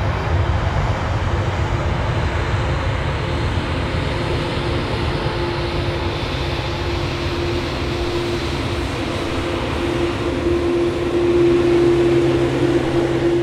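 Twin turbofan engines of a Boeing 777 running loud and steady during its landing rollout: a strong rush of jet noise with a steady whine that grows stronger near the end.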